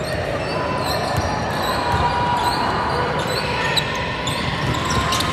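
Gym basketball play: a ball bouncing on the court and short sneaker squeaks on the floor, over a steady din of voices.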